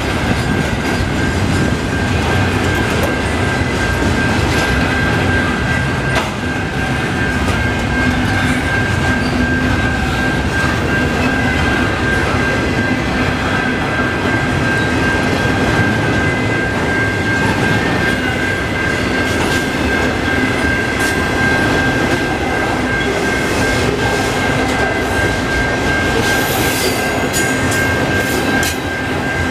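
Intermodal container freight train rolling slowly past on its well cars, wheels rumbling and clattering on the rails, with a steady high-pitched squeal throughout. A run of sharp clicks and clanks comes near the end.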